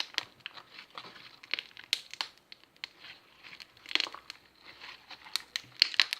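Homemade slime being kneaded and stretched by hand, crackling and clicking irregularly, with louder bursts of crackles about four seconds in and near the end. The slime is stiffening and starting to harden.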